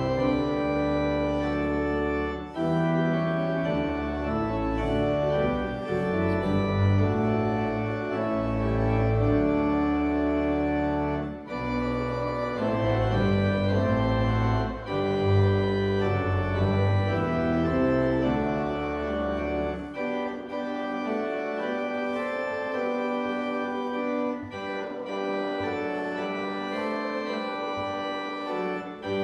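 Church organ playing slow, sustained chords over a deep pedal bass; the bass drops out about two-thirds of the way through, leaving only the higher chords, and comes back right at the end.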